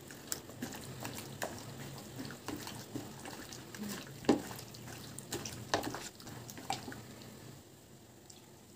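Hands squishing raw chicken pieces through a thick, wet green marinade paste in a plastic bowl: irregular wet squelches and smacks, the loudest about four and six seconds in, quieter near the end.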